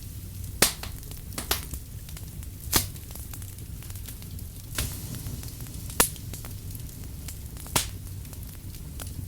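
Firewood burning: a wood fire crackling, with about six sharp, irregular pops over a low steady rumble.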